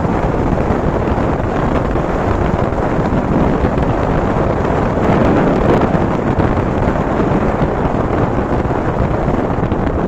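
Wind buffeting the microphone on a moving motorcycle: a loud, steady rumble of rushing air.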